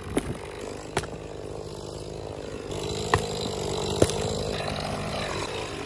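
Sharp knocks and cracks as the charred remains of a burned tree stump are kicked and pieces are broken off by hand: four separate hits, the loudest about four seconds in. Under them runs a steady motor-like hum that gets a little louder about halfway through.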